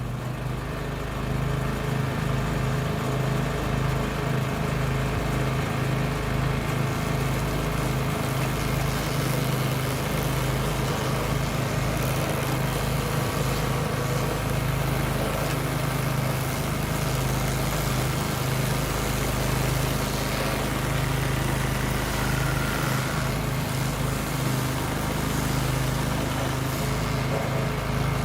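Stump grinder's 14 HP Kohler Command Pro CH440 single-cylinder gas engine running steadily at speed. It rises over the first second or two, then holds an even, unbroken drone.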